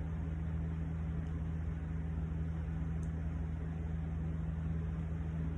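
Steady low mechanical hum with a noisy whir, unchanging throughout.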